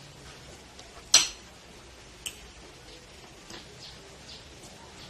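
A metal utensil knocking against a ceramic plate: one sharp loud click about a second in, a fainter one a second later, then a few faint ticks.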